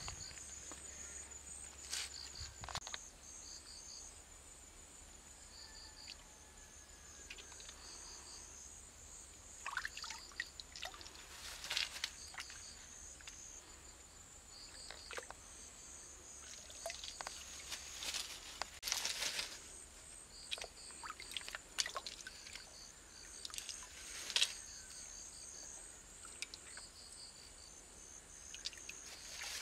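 Hands and feet splashing and sloshing in a shallow stream while feeling along the bed for water snails, in scattered irregular splashes. Insects keep up a steady high drone with short repeated chirps underneath.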